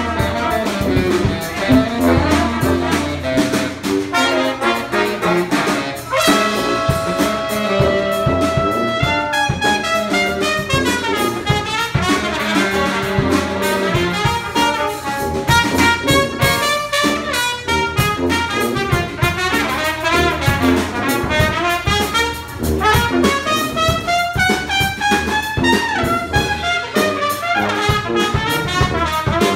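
Live brass band playing an up-tempo tune: trumpet, trombone and saxophone over a sousaphone bass line and drum kit. The horns play fast runs up and down, with a long held note about six seconds in.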